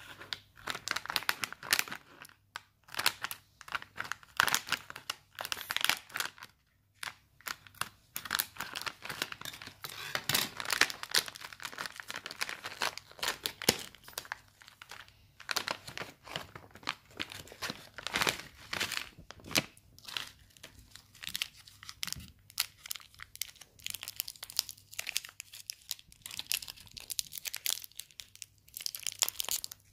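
Crinkly plastic candy wrappers crackling and tearing as they are handled and pulled open, in irregular spells with short pauses.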